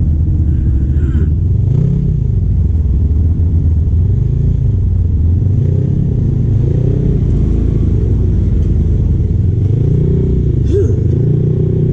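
Side-by-side UTV engine at low revs under load, rising and falling in pitch every few seconds as it is given throttle and eased off while crawling up a rocky trail.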